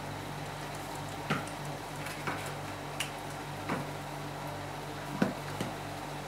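Light clicks and knocks of objects being handled on a desk, about six spread over a few seconds, over a steady low hum.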